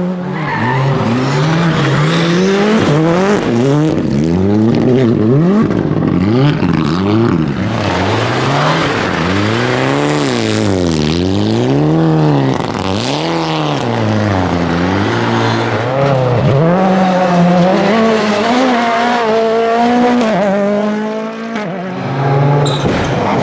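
Rally car engines driven hard, the revs rising and falling again and again as the throttle is lifted and reapplied through the corners, then holding high near the end.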